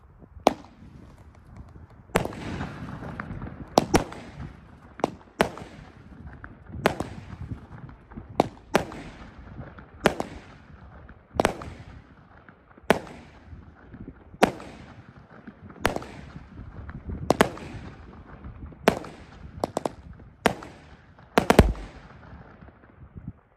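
A small 16-shot consumer firework cake firing its shots one after another: sharp bangs about every second or so, each with a fading echo, and a quick double shot near the end.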